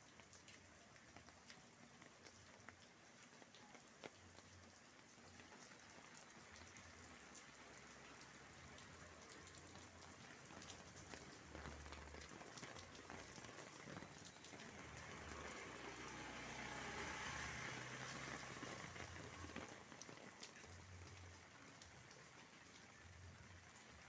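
Steady light rain with scattered drops ticking on surfaces. It grows louder for a few seconds past the middle, then eases back.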